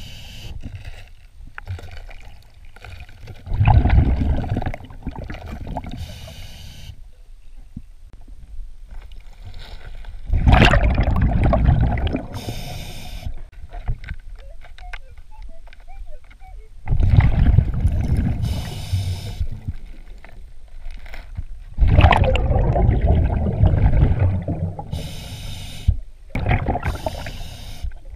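Scuba diver breathing through a regulator underwater: four rumbling bursts of exhaled bubbles, each lasting about two seconds, alternating with the shorter hiss of inhaled air through the regulator, a breath every six seconds or so.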